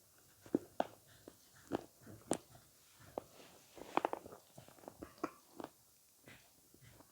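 Close-miked chewing of avocado: irregular short, wet mouth clicks and smacks, with a sharper click a little past two seconds and a cluster of them around four seconds.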